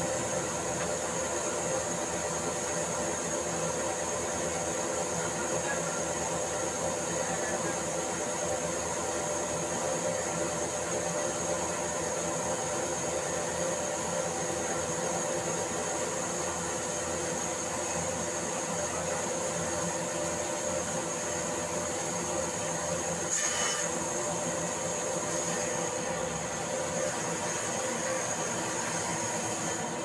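Large log band saw running steadily: an even mechanical hum with several steady tones, and a brief higher noise about three-quarters of the way through.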